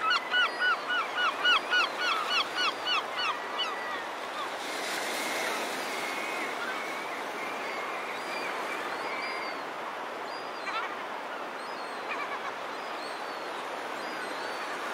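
A gull calling a rapid series of about a dozen loud, hooked notes, roughly three a second, that stops about four seconds in. Fainter scattered bird calls follow over a steady hiss of surf and wind.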